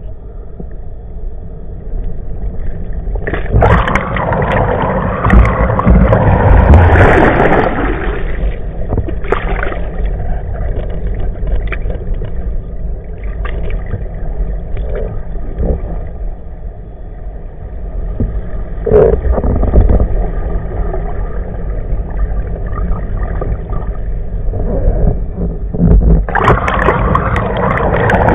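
Water rushing and churning around an underwater camera pulled along on a nautboard, over a steady low rumble with a faint steady whine. The water noise swells into loud churning about three seconds in and again near the end as the board nears the surface.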